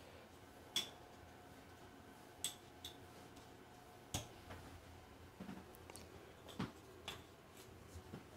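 Board game tokens being gathered up and set back down: a scatter of light, sharp clicks and taps at uneven spacing.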